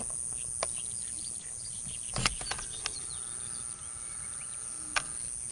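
Outdoor ambience of a steady high insect trill, with faint scattered bird chirps and a few sharp clicks, the loudest about two seconds in and another near five seconds.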